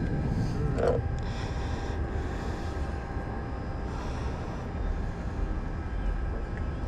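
Boat motor running steadily with a low rumble.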